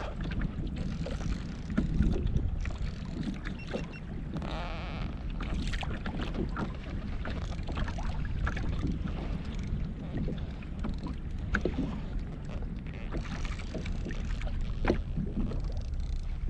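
Wind buffeting the microphone over water lapping at a fishing kayak's hull, with scattered clicks and knocks from the reel being cranked while a fish is fought on the line.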